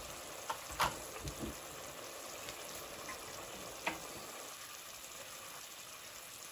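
Chopped onions frying in oil in a stainless steel pot, a soft, steady sizzle with a few light clicks, the clearest about a second in and just before four seconds.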